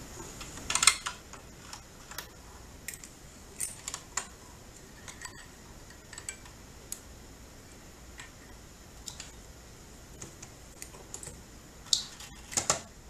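Scattered small clicks and taps of parts being handled and fitted on a domestic straight-stitch sewing machine as it is reassembled after cleaning, with the sharpest clicks about a second in and near the end.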